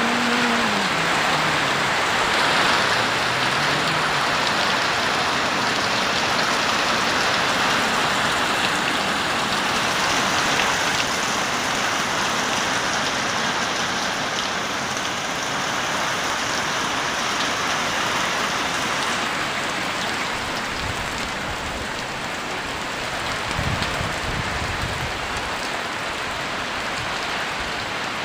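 Steady rain falling and pattering on surfaces, an even hiss throughout, with a few brief low rumbles about three-quarters of the way through.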